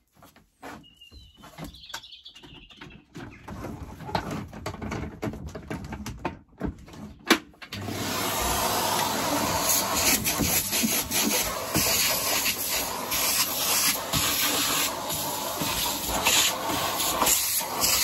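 Henry cylinder vacuum cleaner working over a van's carpet: a steady rush of air with the nozzle scraping and knocking as it picks up sandy grit. The first several seconds are quieter and broken up, and the full steady sound sets in about eight seconds in.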